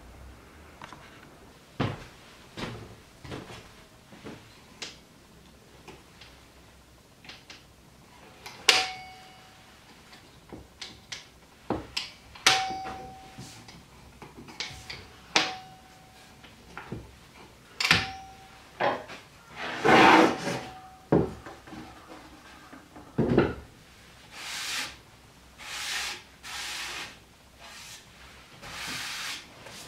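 Folding-table legs being swung out and locked: a series of sharp clicks and wooden knocks from the metal leg hinges and the black-painted cedar legs, several clicks with a short metallic ring. From about 24 s there are rubbing and sliding noises as the table is handled on the bench.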